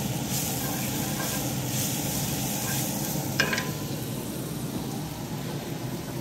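Sliced onions sizzling in hot oil in a Finex cast iron skillet, a steady frying hiss. One sharp clink cuts in about three and a half seconds in.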